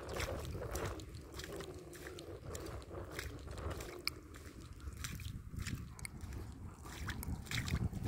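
Wind rumbling on the phone's microphone, with scattered faint clicks and ticks; the rumble grows louder near the end.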